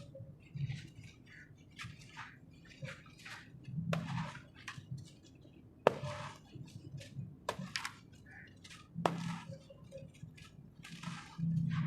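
Dry, crumbly red sand-cement chunks being crushed and broken apart: irregular crunching and crumbling, with sharp snaps about six, seven and a half and nine seconds in.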